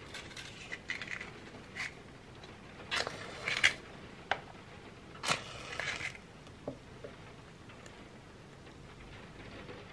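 A match struck against a matchbox, a short rasping scrape and flare, about three seconds in and again a couple of seconds later, among small clicks and knocks of candles being handled.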